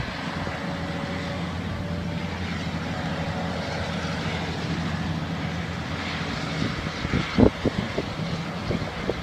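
Steady drone of a high-reach demolition excavator's diesel engine working a high-rise block. A short cluster of sharp knocks comes about seven seconds in.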